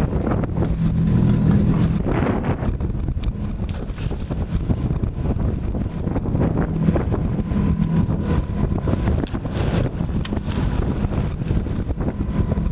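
Fishing boat's outboard motor running steadily, a continuous low rumble, with wind buffeting the microphone.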